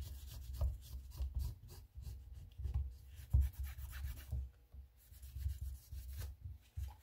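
Old adhesive being scraped and rubbed off a Samsung Galaxy S10+ frame, in irregular light strokes with soft handling knocks.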